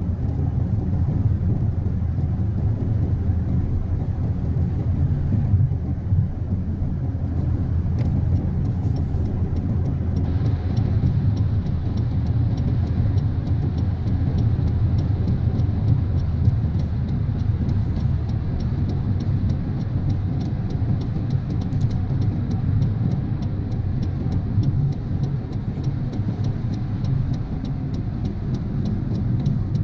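Moving car heard from inside the cabin: a steady low rumble of road and engine noise.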